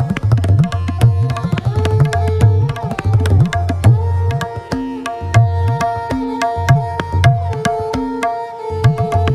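Tabla playing a slow vilambit teen taal peshkar: crisp strokes on the treble drum (dayan) and booming bass strokes on the bayan, some bending in pitch. A sarangi plays the repeating lehra melody in long held notes underneath.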